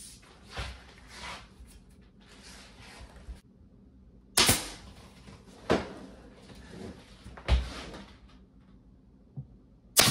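Three sharp knocks on a wooden cabinet frame, a second or two apart, with light handling and shuffling around them. Right at the end comes the sharp crack of a pin nailer firing a pin into the frame.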